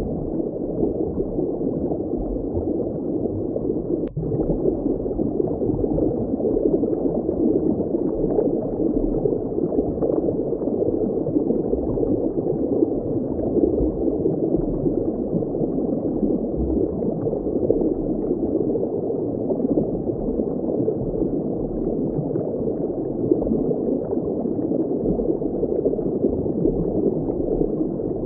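Steady, muffled underwater water ambience: a dense bubbling, gurgling wash with no high end. There is a brief click and dip about four seconds in.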